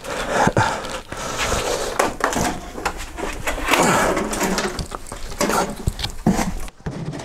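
A heavy metal Cisco Catalyst C9606R switch chassis being lifted and set down into a cardboard box: a string of knocks, scrapes and cardboard rustling as it is handled.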